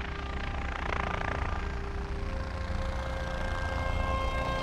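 Intro music and sound design: a steady low rumble under held synthesizer tones, with a swelling whoosh about a second in, the tones growing louder toward the end.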